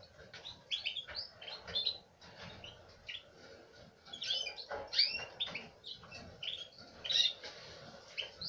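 Caged canaries chirping: many short, high chirps in quick runs, loudest about five seconds in.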